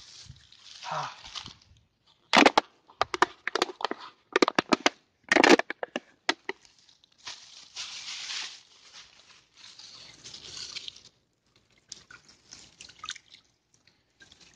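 Plastic bottle being crushed by hand: a quick series of sharp crackles and cracks lasting a few seconds, starting about two seconds in. After it come softer rustling and water sloshing.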